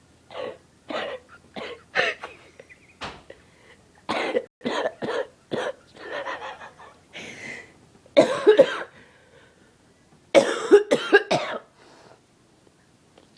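A woman coughing in a long fit: a string of short coughs in quick succession, then two louder, longer coughing bouts in the second half.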